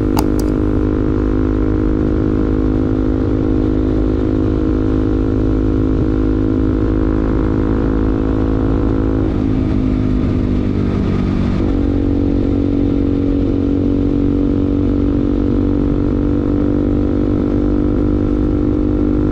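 Bajaj Pulsar NS200's single-cylinder engine through an aftermarket R9 racing exhaust, running steadily at cruising speed. About halfway through the note drops briefly and then picks up again as the throttle comes back on.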